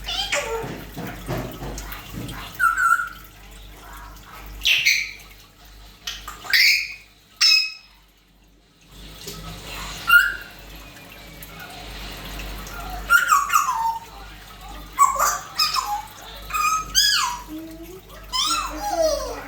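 African grey parrot calling: a string of short whistles and chirps, many sliding down in pitch, with a brief pause about eight seconds in.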